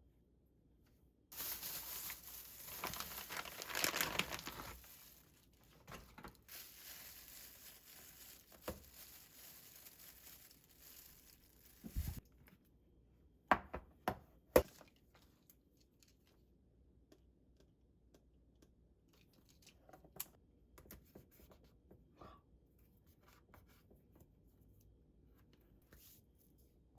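Crinkly wrapping being torn and handled for about ten seconds, loudest in the first few seconds. It is followed by three sharp knocks and then quiet with a few faint ticks.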